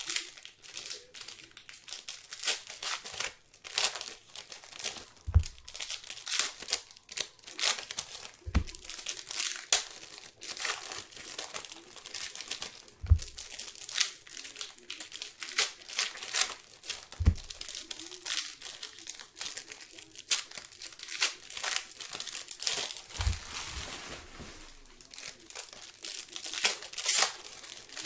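Plastic trading-card pack wrappers being torn open and crinkled in the hands, a dense crackling, with a few soft low thumps every few seconds.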